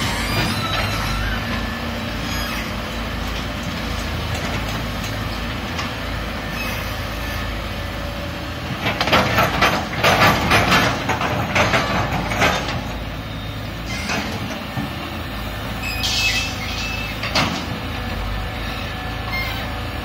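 Caterpillar 320C excavator's diesel engine running steadily under load while it digs wet mud. A burst of loud clanking and scraping comes about nine to twelve seconds in, with two shorter clanks a few seconds later.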